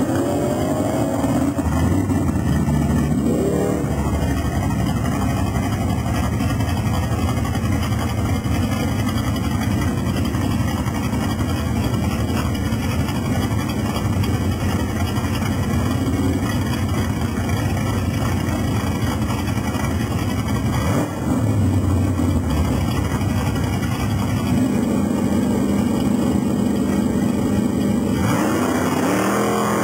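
Drag-racing car engines running loud at the starting line, the revs rising and falling; near the end an engine's revs climb steeply as a car launches.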